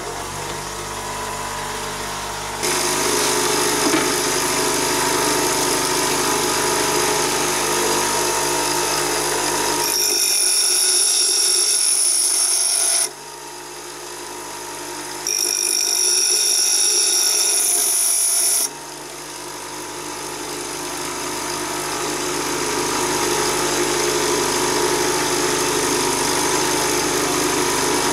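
Bench grinder running while a large HSS twist drill is held to its wheel for sharpening: a steady motor hum under a grinding hiss, the level stepping up and down abruptly several times.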